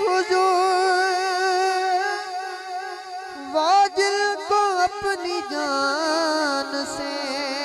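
A young man singing a devotional Urdu rubai unaccompanied into a microphone, holding long drawn-out notes with a wavering vibrato. About three and a half seconds in he breaks into a run of quick melodic turns, then settles on another held note.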